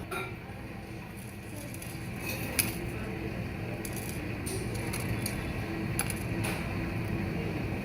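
Several light, separate clinks and taps of small hard kitchen items, metal or glass, being handled, over a steady low background hum.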